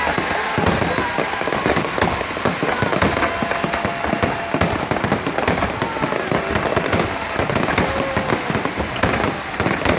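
Fireworks display going off, a dense, unbroken run of bangs and crackles.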